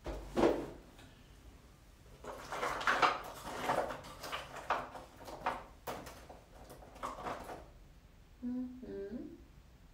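Watercolour paint tubes being rummaged through: a knock, then a run of small clatters and scrapes as tubes are picked up and turned over, with a brief hummed murmur near the end.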